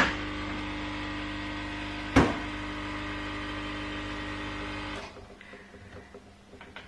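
Coffee machine running with a steady, pitched mechanical hum that stops abruptly about five seconds in. There is one sharp click about two seconds in.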